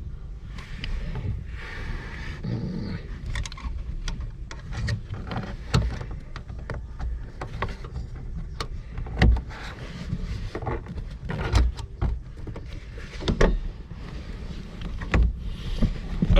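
Irregular clicks, knocks and rattles of a pick tool being worked into the trunk latch mechanism to release it by hand, with a few louder knocks in the second half.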